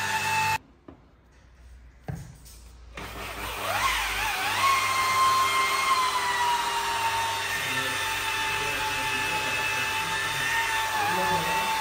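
Electric rotary polisher with a foam pad whining steadily as it buffs car paint. It cuts off about half a second in, leaving near silence with one click. About three and a half seconds in it starts again and rises to speed on a headlight lens, then runs on, its pitch slowly sagging as the pad is pressed to the lens.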